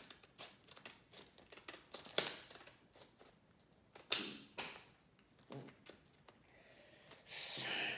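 Clear plastic blister packaging crackling and clicking as it is handled and worked at to free the small parts inside, with two sharper snaps about two and four seconds in and a denser rustle near the end.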